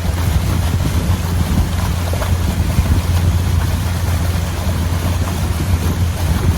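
Pontoon boat cruising: a steady low rumble of the motor and moving water, with wind on the microphone.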